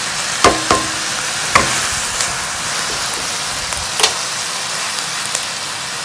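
Kailan and shallots sizzling in a wok just off the heat, with a wooden spatula knocking against the wok four times as the vegetables are turned, three knocks in the first couple of seconds and one about four seconds in.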